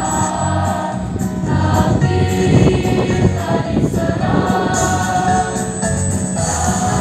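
A mixed school choir singing an Indonesian patriotic song in sustained held notes, accompanied by an electronic keyboard through an amplifier.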